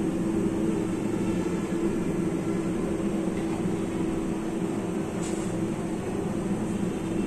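A steady machine hum, one constant low tone over an even haze of noise, with a faint click about five seconds in.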